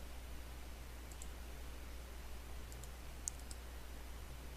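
Faint computer mouse clicks, a few scattered ones, some in quick pairs, over a steady low hum.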